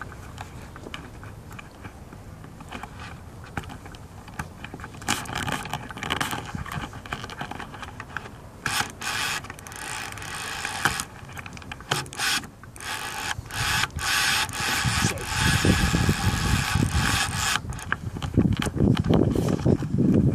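Fly reel's click-and-pawl drag buzzing in several long spells as the hooked carp pulls line off the reel. Heavier rustling and bumps come in during the second half.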